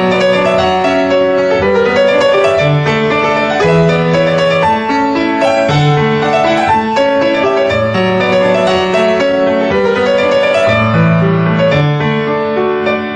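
Solo grand piano playing a new-age piece, with low bass notes held for a second or two under a moving melody and chords.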